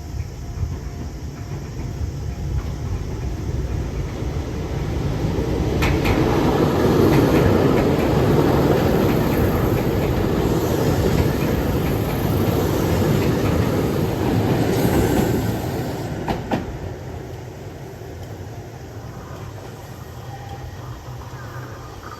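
Train set 805 passing over a level crossing. The rumble of wheels on rail builds, is loudest from about six to fifteen seconds in with wheel clacks, and then fades as the train moves away.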